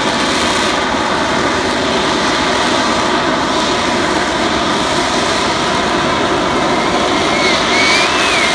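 Harrier jump jet's Rolls-Royce Pegasus vectored-thrust turbofan, a loud steady jet roar as the aircraft hovers with its exhaust blasting downward. A faint wavering whistle rides on top near the end.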